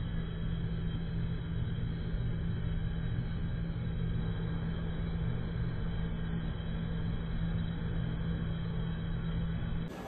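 Recycled syngas burning in the burner of a horizontal carbonization furnace: a steady rumble of flame with a constant low hum underneath.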